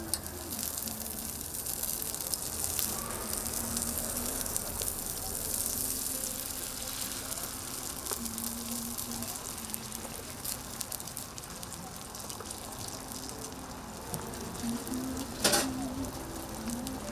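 Food sizzling steadily on a hot griddle as toast fillings fry. About fifteen seconds in there is a single sharp knock, the loudest sound.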